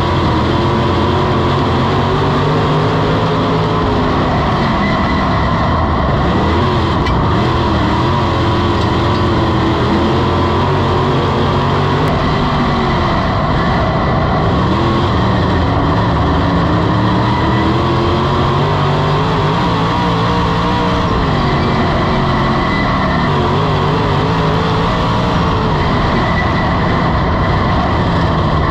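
Dirt modified race car's V8 engine at racing speed, heard from inside the cockpit, loud and continuous. Its pitch rises and falls repeatedly as the throttle is lifted into the corners and reapplied on the straights.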